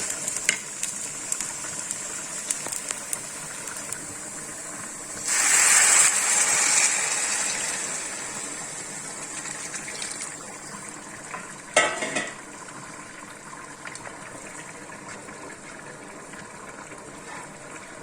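Water poured into a pot of basmati rice fried in hot ghee: a steady sizzle surges loudly about five seconds in, then dies down over several seconds. A metal utensil clanks against the pot once, about twelve seconds in.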